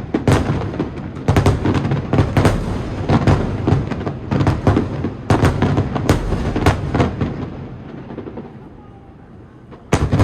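Aerial fireworks shells bursting in rapid volleys: many sharp bangs, each with a rumbling echo. They thin out and die away about seven or eight seconds in, and a fresh bang comes near the end.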